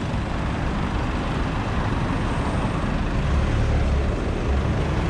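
Street traffic noise: a steady wash of passing vehicles, with a low engine rumble swelling about three seconds in as a heavier vehicle draws near.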